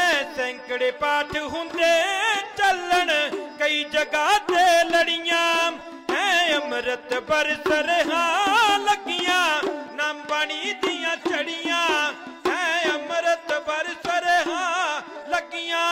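Punjabi dhadi music: a sarangi plays a wavering, sliding melody while dhadd hourglass drums are tapped in a quick rhythm.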